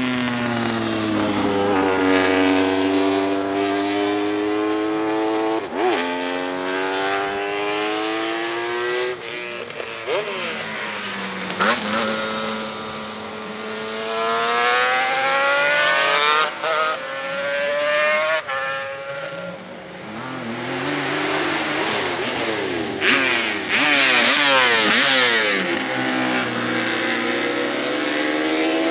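High-revving racing motorcycle engines accelerating past, the note climbing and dropping again and again as they change gear, with a few sharp cracks. Near the end two engines are heard at once.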